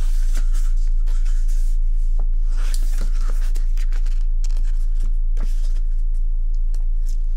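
Pages of a K-pop album's photo book being flipped by hand: paper rustling and flapping in short irregular bursts, over a steady low hum.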